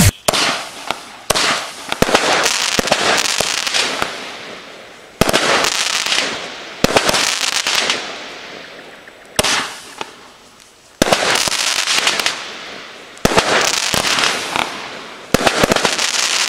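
Vuurwerktotaal 10-shot fireworks battery firing, about ten sharp bangs a second to a few seconds apart. Each bang is followed by a second or two of dense crackling that fades away.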